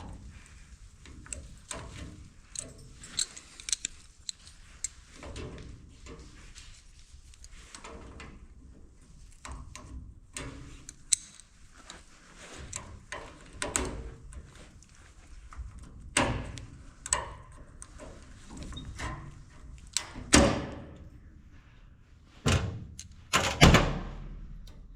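Scattered clicks, taps and knocks of hand tools and loose metal parts as a cotter pin and linkage parts are worked off a grain drill's clutch arm, with a few louder knocks near the end.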